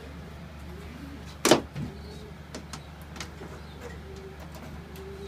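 A single sharp knock about one and a half seconds in, then a few light clicks, as a part fixed to the wall is tried to see whether it will move. A steady low hum runs underneath.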